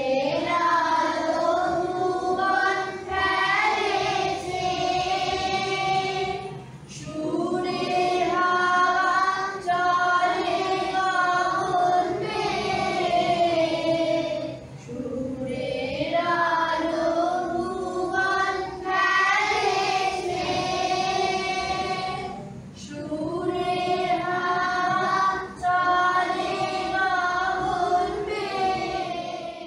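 A class of young children singing a song together as a group, in long sung phrases with brief pauses between them.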